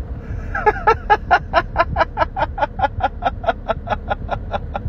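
A person laughing in a long run of quick, even "ha" bursts, about five a second, starting about half a second in.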